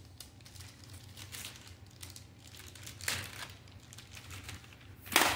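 Thin clear plastic bag crinkling as a remote control is handled and slid out of it, in irregular rustles with a louder crinkle about three seconds in and the loudest one near the end.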